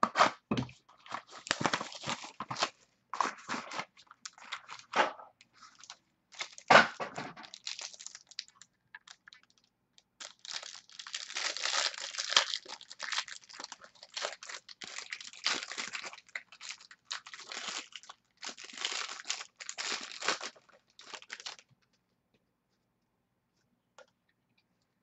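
Foil wrapper of a trading-card pack being torn open and crinkled, with the cards inside being handled: an irregular run of crinkling and rustling that stops about three seconds before the end.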